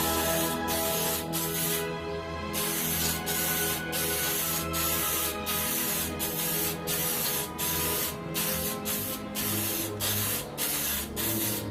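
Aerosol spray paint can hissing in short bursts, one every half-second to second, with a brief pause about two seconds in, over background music.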